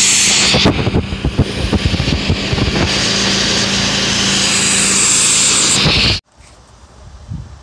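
Pressure washer jet rinsing suds off a car's body and wheel: a loud hiss of spray with spattering as the water hits the paint, over a steady low hum from the machine. It cuts off suddenly about six seconds in.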